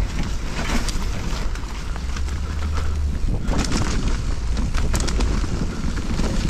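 Mountain bike riding down a steep dirt trail: tyres rolling over the ground and the bike clattering over bumps, with scattered sharp knocks. Heavy wind rumble on the microphone runs under it.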